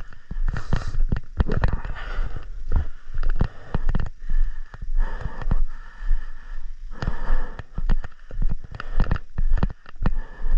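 Footsteps of the person wearing the camera, walking at a steady pace, with a thud roughly every 0.7 s and the rustle of clothing and gear between steps.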